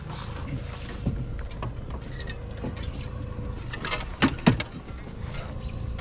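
Handling noises in a plastic fishing kayak as a caught largemouth bass is held and unhooked: scattered knocks and clicks, with two louder knocks a little past four seconds in. Underneath are a low rumble and a faint steady hum.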